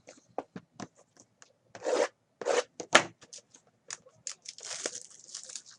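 Trading cards and their pack wrappers being handled: cards slid and flicked against one another with scattered clicks and short rustles, turning into a denser run of rustling and tearing near the end as a pack is opened.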